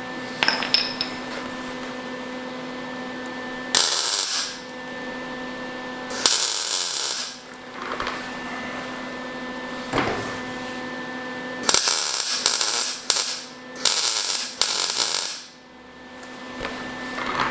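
Welder laying tack welds on a sheet-metal door jamb patch: several short welding bursts, each about a second or less, the last few coming close together. A steady hum runs underneath them.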